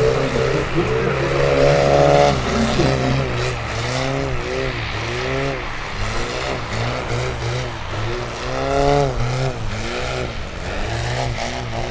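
Engine of a giant 50% scale Piper Clipped Wing Cub RC model, a Valach/Fiala 280 B4, running in aerobatic flight. Its note rises and falls in pitch over and over, about once a second.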